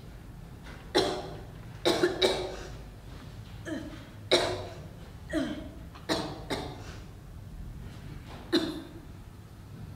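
A person coughing hard about ten times in clusters, each cough a sharp bark with a short voiced tail that falls in pitch. It is an acted fit of coughing for a sick character in a puppet play.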